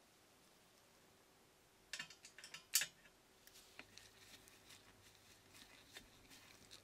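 A quick cluster of sharp metal clicks about two seconds in, then faint ticking and scraping as a screwdriver turns a tiny screw into thin brass sheet.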